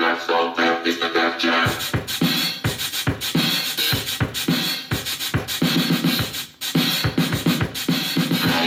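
Hip-hop track with turntable scratching over a punchy drum beat, playing from a TOREC Super Jumbo J-1 cassette boombox.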